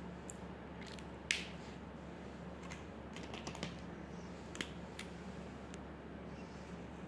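A handful of small, sharp clicks and taps at irregular spacing, the loudest about a second in and a quick cluster past the middle, over a steady low hum.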